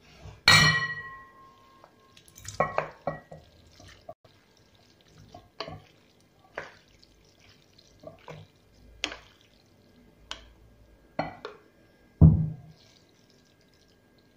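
Kitchenware clinking and knocking: about a dozen irregular clinks of dishes and utensils, some ringing briefly, with a louder clatter about half a second in and a heavier knock near the end.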